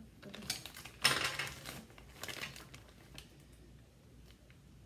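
Small plastic kit tools and their packaging being handled: a few short bursts of clattering and rustling, the loudest about a second in.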